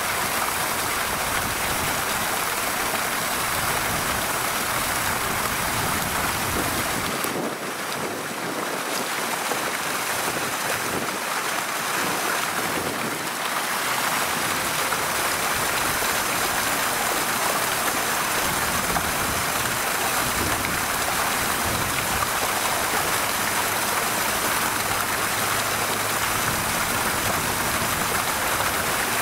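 Steady rush of running water with no distinct calls or knocks.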